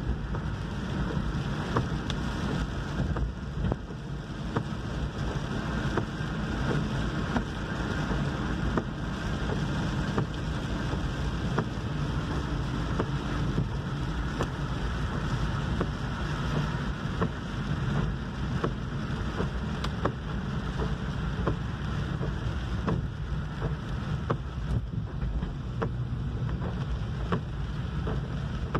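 Car driving on a wet road in the rain, heard from inside the cabin: steady road and tyre noise with scattered light ticks of raindrops.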